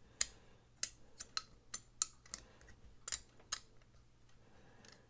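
Sharp little metal clicks and taps, about a dozen in the first three and a half seconds and fainter after, as the steel liner and parts of a folding knife are pressed and fitted together by hand.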